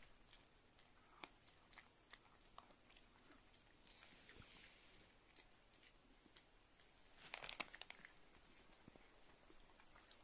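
Yorkshire terrier chewing a dog chew: faint, scattered crunches, with a louder run of crunching about seven seconds in.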